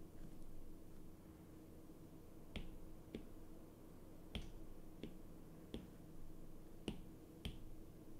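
Stylus tip tapping on a tablet's glass screen while handwriting: about seven sharp clicks at irregular intervals, over a faint steady hum.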